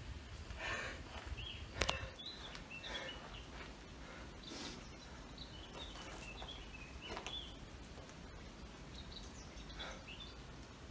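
Small woodland birds chirping in short, high calls over footsteps on leaf litter and twigs. A sharp click about two seconds in is the loudest sound.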